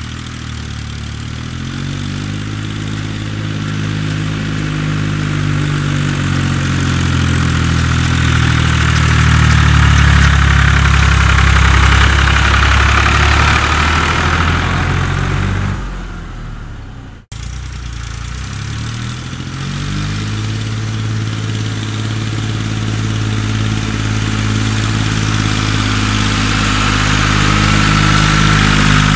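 Ursus C-360 3P tractor's three-cylinder diesel engine labouring as it pulls a loaded trailer of soil. It grows louder as it comes near and passes, then fades. After an abrupt cut about halfway through, the engine is heard again pulling hard uphill and building in level.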